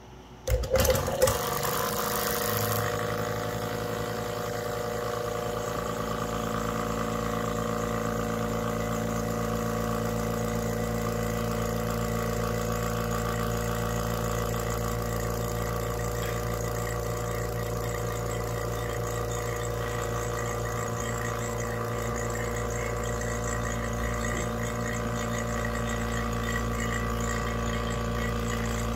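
Yellow Jacket SuperVac 6 CFM vacuum pump switched on about half a second in. It starts with a loud burst and a hiss for about two seconds, then runs steadily with an even hum. It is pulling a reclaim tank down through a vacuum-rated hose toward 500 microns.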